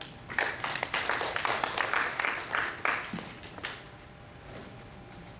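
Audience applauding: a short round of clapping that dies away about four seconds in.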